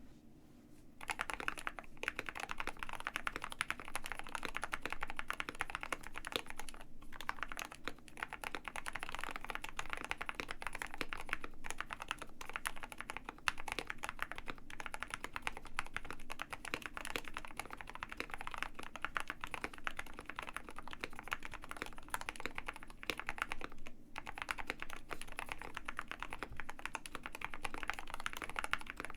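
Continuous fast typing on a KBD67 Lite R2 65% mechanical keyboard with an ABS plastic case, silicone-mounted, fitted with Gateron Black Ink V2 linear switches. A brief pause at the start, then typing resumes about a second in and runs on with two short breaks.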